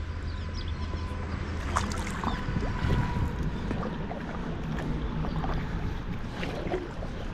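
Wind buffeting the microphone over moving river water, with a few light knocks, the loudest about three seconds in.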